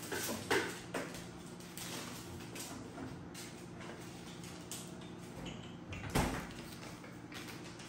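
Refrigerator door being opened and items taken out: light knocks and rustles, with one louder thump about six seconds in, over a low steady hum.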